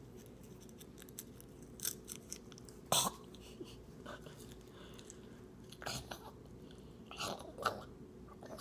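A person chewing cheese popcorn with the mouth close to the microphone: scattered short crunches, the loudest about three seconds in.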